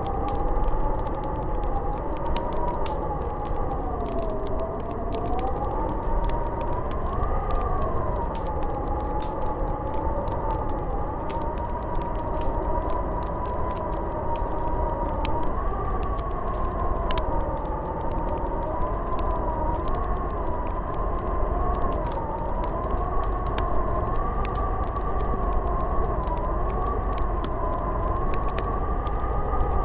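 Snowstorm wind howling: a wavering whistle that slowly rises and falls in pitch over a steady low rumble, with faint scattered crackling ticks throughout.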